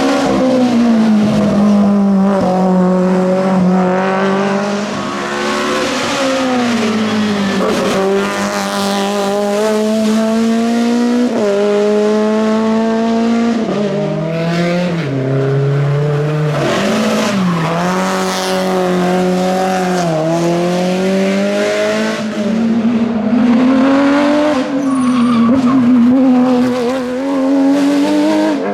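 Race car engine running hard on a hill climb. The engine note rises and falls with throttle and gear changes, with several quick pitch jumps in the second half.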